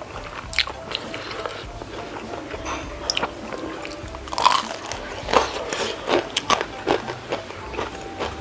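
Close-miked crunching bites into a crispy fried udang rambutan (shrimp coated in fried noodle strands), starting about four seconds in and going on as irregular crackling crunches while it is chewed.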